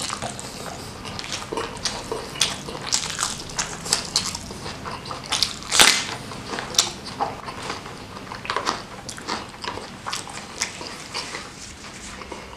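Close-miked eating: a person chewing and biting food with irregular wet mouth clicks and crunches, one louder crunch about halfway through.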